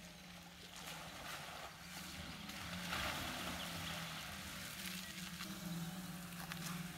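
Volkswagen ID.3 electric car driving slowly on a wet sandy dirt track: faint tyre noise and a low steady hum, a little louder from about three seconds in as it comes closer.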